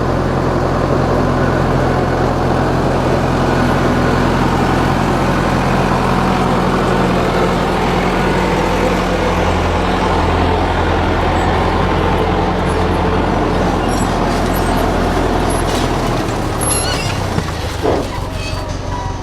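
A motor vehicle's engine running steadily with a low hum, easing off about sixteen seconds in.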